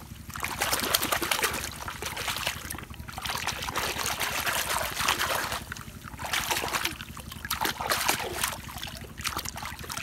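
Water splashing and sloshing as a hand swishes and dunks a small plastic toy truck to wash off the mud, in several surges with short pauses between.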